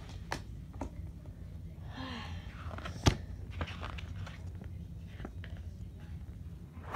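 Hands handling a DVD case and its paper insert: scattered clicks and light rustling, with one sharp, loud click about three seconds in. A faint voice murmurs briefly about two seconds in, over a steady low hum.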